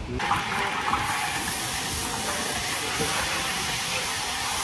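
Steam hissing steadily from banquet cooking gear, starting abruptly just after the start.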